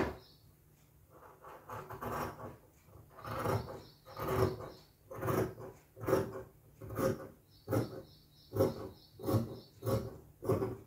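Large tailor's scissors cutting through cloth, a steady run of snips about one a second that quicken slightly toward the end.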